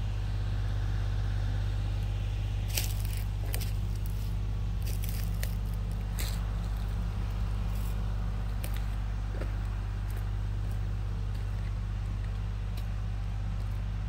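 Kubota tractor engine running with a steady low drone as it drives along, with twigs and brush crackling and snapping under it a few times.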